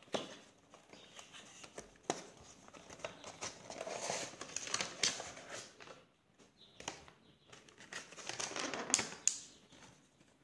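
Clear plastic packaging insert crinkling and clicking as a Funko Pop vinyl figure is tipped out of its cardboard box and worked free of the plastic, with a few sharp taps of cardboard and plastic. The crinkling comes in two louder stretches, with a short lull in between.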